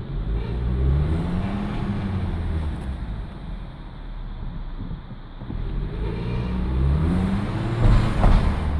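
Four-cylinder 1.4 TSI petrol engine of a VW Golf 7 with the DQ200 seven-speed DSG, accelerating through the low gears and rising in pitch twice. Near the end it gets louder and a high squeal rises over the engine: the squeak and slip that the owner reports on the 1-2 and 2-3 shifts of this faulty DQ200 gearbox.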